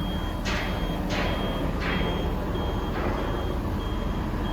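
Backup alarm beeping steadily, about one high beep every three-quarters of a second, over a low diesel engine rumble, with a few short rushing noises in between.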